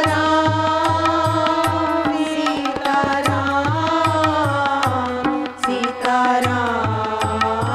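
Hindu devotional bhajan: women singing together over harmonium, with tabla strokes keeping a steady rhythm.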